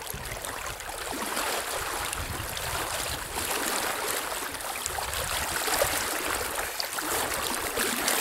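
Steady rush of river water flowing around wading legs, growing slowly louder, with small splashes.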